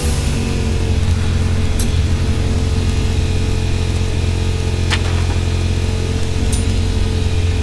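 Wood-Mizer LT15 sawmill's engine running steadily, with a few sharp knocks about two, five and six and a half seconds in.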